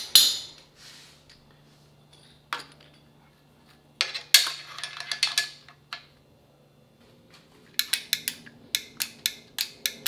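Steel parts knocking and clinking against the steel column of a homemade press brake while a drilled steel setup block and a roller-lever limit switch are set in place. There is a sharp clank at the start, a cluster of metallic knocks about four seconds in, and a quick run of about ten sharp clicks near the end.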